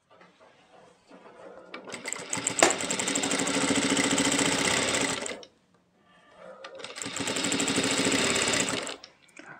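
Jack industrial single-needle lockstitch sewing machine stitching in two runs. Each run speeds up to a fast, steady needle rhythm and then stops, the first lasting about four seconds and the second about three. A sharp click comes during the first run.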